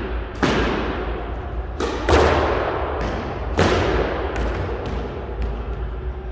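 Squash ball being hit with a racket and smacking off the walls and floor of a squash court, each smack ringing in the court's echo. There are four sharp hits in the first four seconds, the loudest about two seconds in, then fainter knocks, over a steady low hum.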